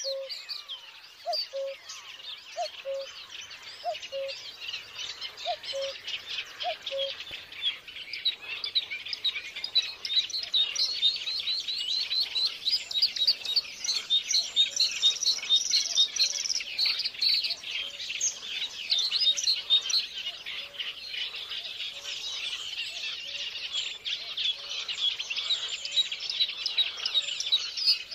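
A dense chorus of small songbirds chirping and twittering without pause. For the first several seconds, a lower two-note call repeats about every second and a half beneath it.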